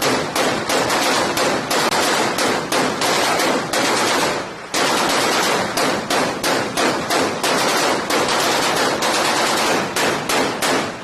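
Automatic gunfire in rapid, continuous bursts, with a brief pause about four and a half seconds in.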